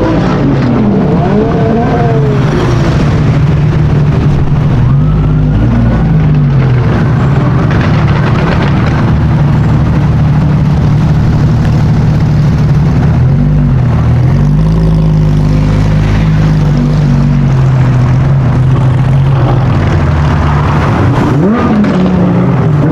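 Sports car engine running loud, mostly holding a steady pitch, with several quick swings where the pitch drops and climbs again.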